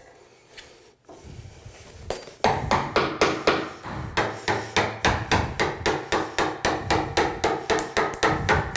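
A faint scrape, then from about two and a half seconds in steady hammer taps, about three a second, knocking a chisel into the wooden door edge to outline a hinge mortise.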